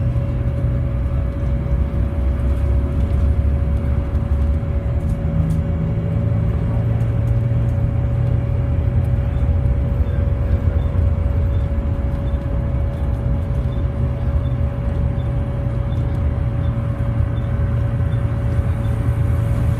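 Volvo B7TL double-decker bus running, a low rumble with a steady mid-pitched whine held without change throughout. The whine is an odd noise the uploader has never heard on this bus type and cannot identify.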